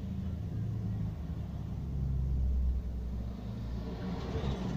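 Cars driving slowly past, with a low engine rumble that swells to its loudest a little past halfway, and another car coming by near the end.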